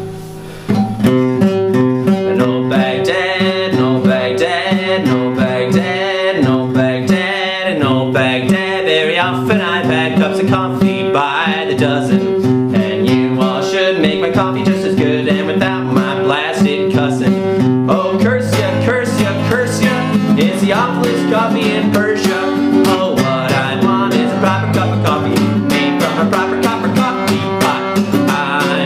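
Steel-string acoustic guitar played solo in an instrumental break, picked and strummed, with a steady note ringing under the melody until about two-thirds of the way through.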